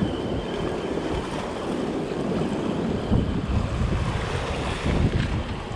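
Sea surf washing and foaming against the rocks, with wind buffeting the microphone in heavier gusts about three and five seconds in.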